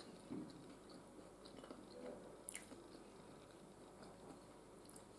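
Faint chewing: a person eating a mouthful of food, with soft, scattered mouth sounds close to near silence.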